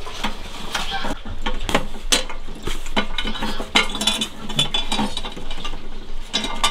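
Irregular metallic clicks, knocks and rattles of hands fitting a gas hose onto the inlet of a new gas stove and handling its metal body.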